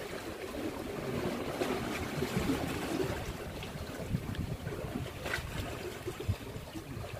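Sea water lapping against shoreline rocks, with wind buffeting the microphone in an irregular low rumble and a few faint ticks.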